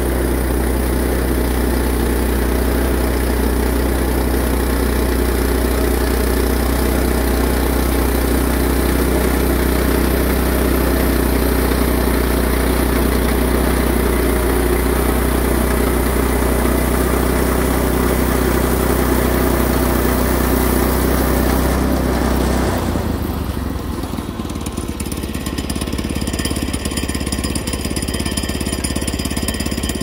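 Woodland Mills HM122 portable bandsaw mill running steadily, its gas engine under load as the blade cuts through a poplar log. About 23 seconds in the engine drops to a lower, rougher idle as the cut finishes.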